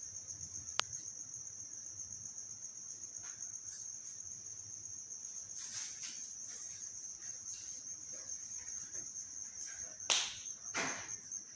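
Crickets trilling steadily in a constant high-pitched tone. There is a sharp click about a second in, and two short bursts of noise near the end.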